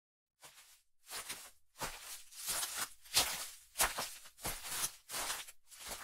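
Footsteps as an intro sound effect: a steady run of about nine short scuffing steps, roughly three every two seconds.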